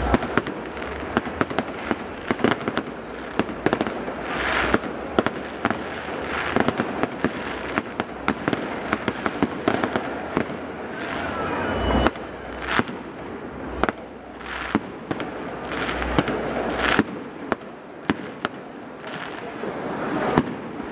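Aerial fireworks bursting in quick succession: many sharp bangs with crackling between them, and a few heavier low booms.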